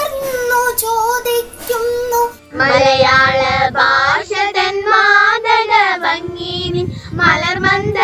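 A girl singing a Malayalam poem solo in long held notes. About two and a half seconds in it cuts abruptly to a group of girls singing a Malayalam song together, their voices wavering in pitch.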